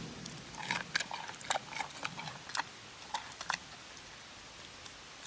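Giant panda biting and chewing a raw carrot: irregular crisp crunches, a few a second, that thin out and stop after about three and a half seconds.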